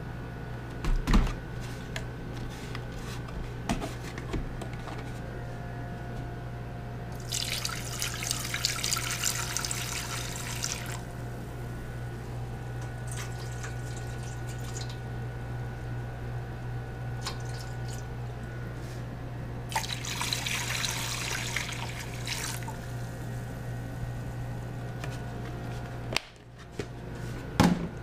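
Distilled white vinegar poured from a plastic gallon jug into a cooking pot and a pan holding metal car parts, in three pours of a few seconds each. There are a few knocks of handling early on, over a steady low hum.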